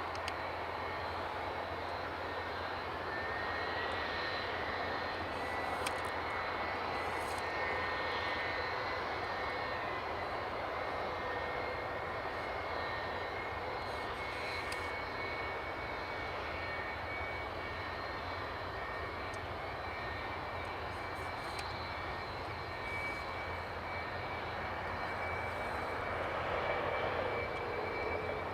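Jet airliner engine running steadily at idle: a high whine over a low rumble.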